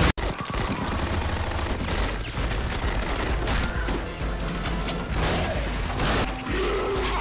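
Movie action-scene soundtrack: a dense stream of rapid gunfire with a low rumbling score underneath. The sound drops out briefly right at the start, at an edit cut.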